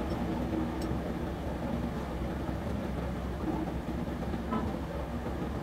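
A machine running with a steady low hum, with a few faint clicks.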